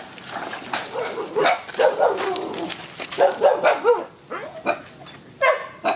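Dogs barking and yelping in short, repeated calls, over scuffing footsteps on dry leaves.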